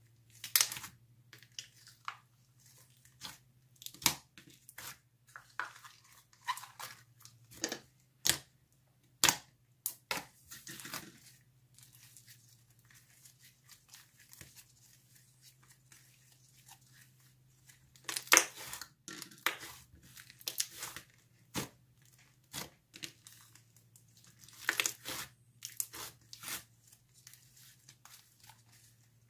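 Inflated jelly-and-clay slime stretched, folded and squeezed by hand, giving irregular sharp pops and crackles as trapped air bursts. The pops thin out for a few seconds midway, and a faint steady low hum runs underneath.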